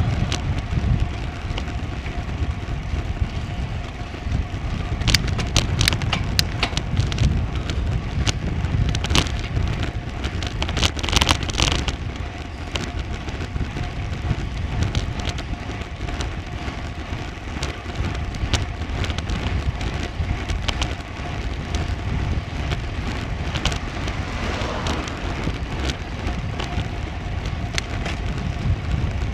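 Ride noise from a bicycle climbing a road: a steady low rumble of wind on the microphone and tyre noise, with a faint hum and scattered clicks and crackles, thickest about five to twelve seconds in.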